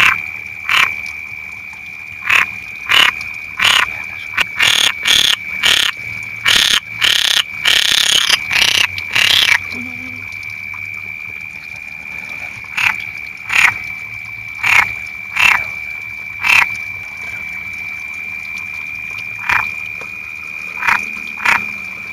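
Frogs croaking: short, loud calls at irregular spacing, coming in a quick run from about 4 to 10 seconds in and more spread out after. Under them runs a continuous high-pitched trill.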